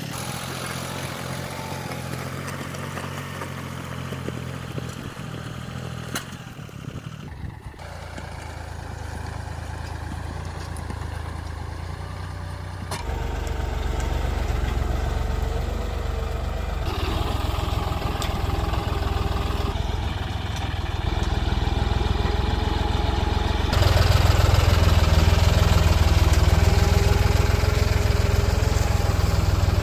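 John Deere tractor's diesel engine running steadily under load as it pulls a reversible mouldboard plough through soil. It grows louder about halfway through and again near the end.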